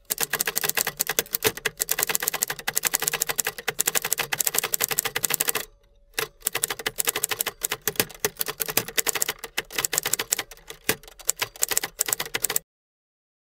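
Improvised comic sound effect of defecating: a long run of rapid crackling, sputtering pops that breaks off briefly about halfway through, then goes on again and stops abruptly.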